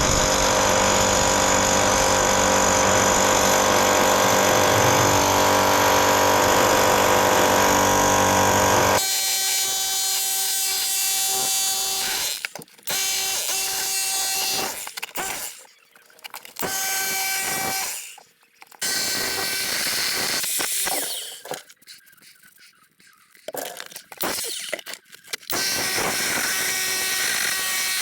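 Electric jackhammer breaking up a concrete floor. It runs continuously for about nine seconds, then in several shorter bursts with pauses between them.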